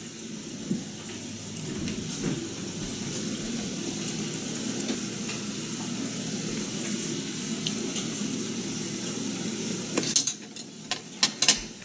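Karaage (Japanese fried chicken) deep-frying in oil with a steady sizzle. About ten seconds in come several sharp clicks of chopsticks against the stainless steel tray and wire rack.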